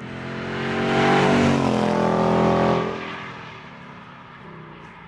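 Ford Mustang V8 driving past under hard acceleration: the engine note swells as it approaches, is loudest for about two seconds from a second in, shifts in pitch as it passes, then fades away.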